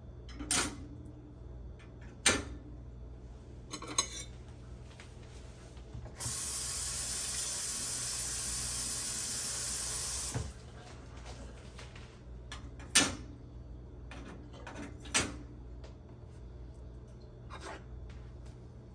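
A kitchen faucet runs steadily for about four seconds as spiralizer parts are rinsed. Before and after, several sharp clacks come as the parts are handled and set into the dishwasher rack, the loudest about two seconds in and again after the water stops.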